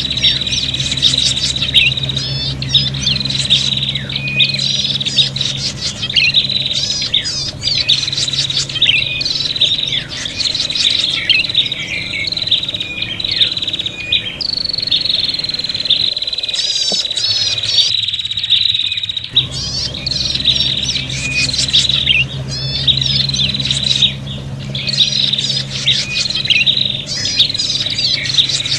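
Prinias (prenjak) giving agitated, fighting-style chattering calls: fast repeated high notes in bursts every second or so. Under them runs a steady thin whine, which cuts out briefly about two-thirds of the way in.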